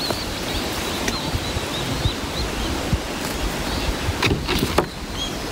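Wind buffeting the microphone: a steady rushing noise with uneven low rumbling. Faint short high chirps repeat through it, and a few rustles come near the end.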